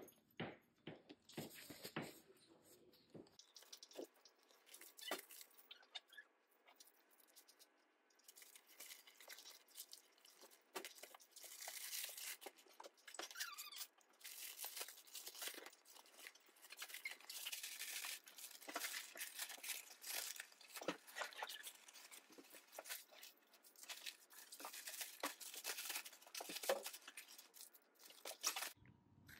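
Faint rustling and crinkling of folded nylon car sunshades and their nylon storage bag being handled and packed by hand, with many small irregular crackles.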